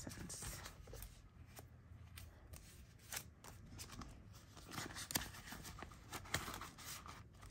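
Paper banknotes and the plastic pockets and pages of a ring binder being handled: soft, scattered rustles and small taps as bills are gathered and pages turned.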